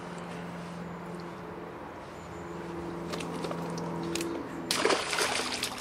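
A steady low hum with a few faint sloshes of water, then a loud splash of under a second near the end as a small pike is let go in the shallows.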